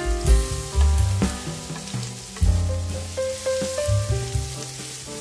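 Chopped onion sizzling as it fries in hot oil in a pan, with a spatula stirring it, under background music.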